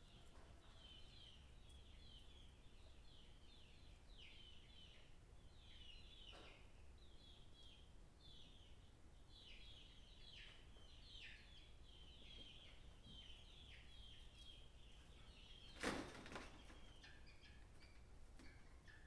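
Faint, rapid chirping of small birds: many short, high chirps in quick succession, each falling in pitch. A single sharp knock near the end.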